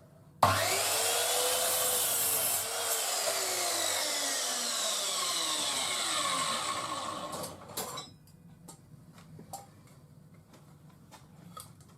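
Titan TTB598MSW 210 mm sliding compound mitre saw, 1500 W motor, starting suddenly and cutting through a piece of wood at 90 degrees. The blade then winds down with a falling whine for several seconds, followed by a few light clicks.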